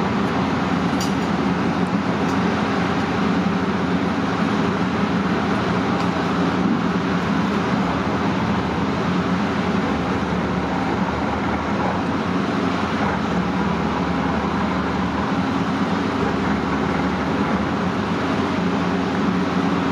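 Patrol vessel's engines droning steadily, a constant low hum with an even wash of water and wind noise over it.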